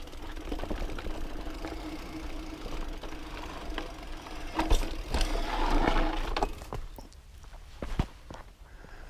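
Specialized Camber Comp full-suspension mountain bike rolling over a rocky dirt trail: tyres crunching on gravel and rock, the bike rattling and knocking over bumps. The rattle is loudest about five to six seconds in, then drops to scattered clicks near the end.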